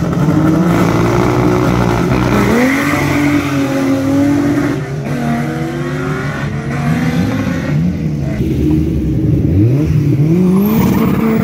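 Race car engines at a drag strip revving and accelerating hard, the pitch climbing and dropping again and again as they pull through the gears. Near the end a car drives past close by, its engine note rising.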